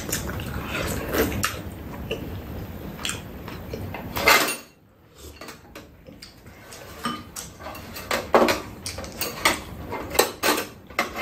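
Spoons and chopsticks knocking and clinking against bowls and a metal tray during a meal, in scattered short clicks, with one sharper knock about four seconds in.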